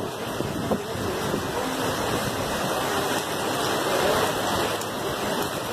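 Heavy downpour on a flooded street: a steady rush of rain and running water.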